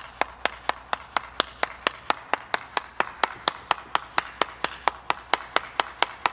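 One person clapping their hands at a steady, even pace, about four claps a second.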